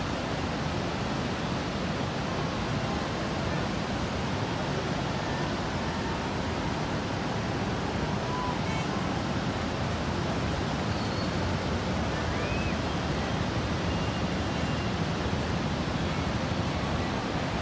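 Floodwater pouring through a dam's seven open spillway gates and crashing into the pool below: a loud, steady rush that does not change.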